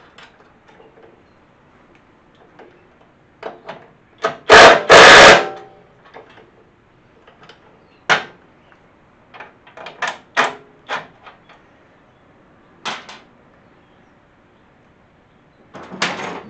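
Cordless impact driver run in two short bursts about four and a half seconds in, spinning a nut onto a bolt. Scattered clicks and clinks of tools and hardware come before and after.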